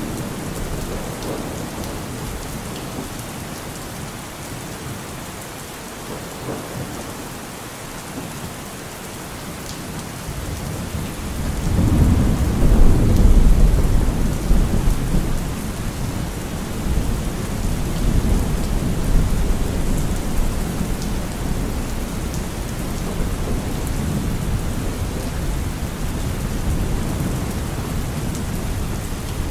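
Steady rain falling, with a deep roll of thunder that swells about twelve seconds in and then rumbles on more softly.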